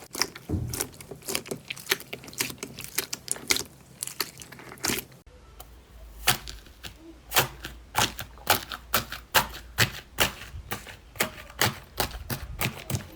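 Slime being squeezed and poked, giving an irregular run of sharp clicks and pops, several a second. The background changes about five seconds in, as a new clip begins.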